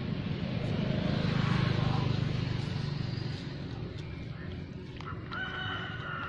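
A low engine rumble, loudest in the first three seconds and then fading, like a passing motor vehicle. Near the end a single steady high-pitched call lasts about a second.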